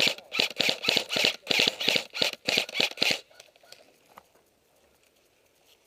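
Airsoft gun firing a rapid string of sharp shots, about five a second, which stops about three seconds in.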